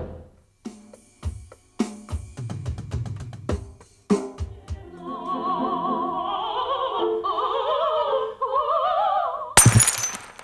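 A quick run of drum hits, then an operatic voice singing with a wide vibrato for about five seconds, cut off near the end by a single loud crash.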